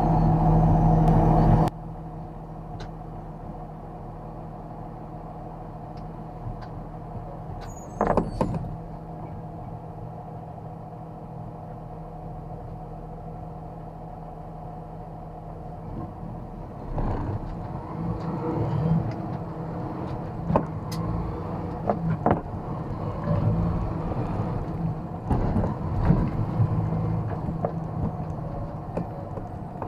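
A truck's engine running, heard from inside the cab. It is loud for the first couple of seconds, then drops suddenly to a lower steady hum, with a brief loud noise about eight seconds in. From about sixteen seconds in the engine works harder again, with rattles and clicks from the cab.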